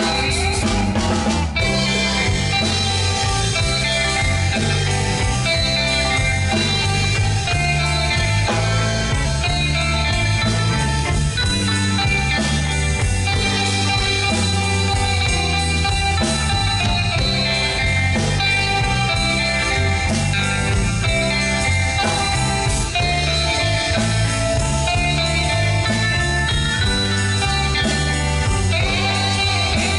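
Live rock band playing: several electric guitars over bass guitar and a drum kit, at a steady loud level throughout.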